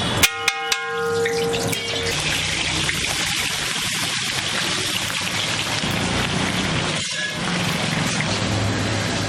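Three quick clicks and a short ringing tone, then a steady hiss of food sizzling in a hot pan.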